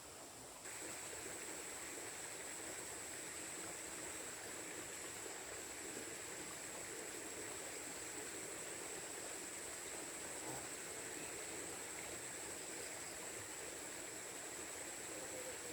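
Steady rain falling, an even hiss that steps up suddenly under a second in, with a thin steady high-pitched tone over it.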